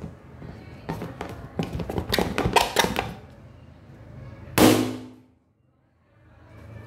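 A latex balloon rubbed and knocked against the phone, giving a run of squeaks and taps, then one sudden loud pop about two-thirds of the way through.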